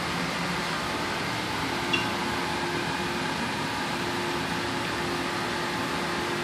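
Steady ventilation hum with a faint steady tone running under it, and one short high click about two seconds in.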